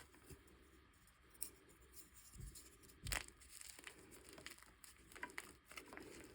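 Chalk blocks being crushed by hand: faint crumbling and crackling, with a few sharp snaps, the loudest about three seconds in.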